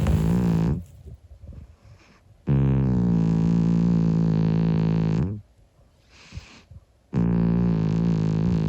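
A 25-year-old cat snoring in its sleep. Each snore is a long, steady, humming drone of about three seconds, with a pause of a couple of seconds between breaths: one ends near the start, one fills the middle, and another begins near the end.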